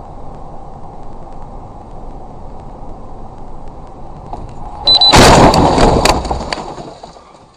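Steady road noise inside a moving car, then about five seconds in a sudden, very loud car crash lasting around two seconds with several sharp knocks, fading away near the end.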